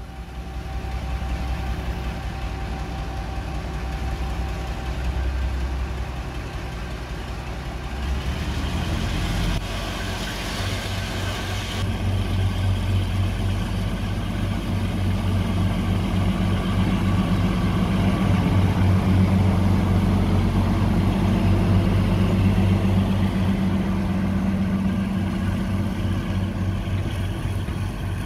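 Heritage diesel locomotive's engine running, a deep steady throb that grows louder from about ten seconds in.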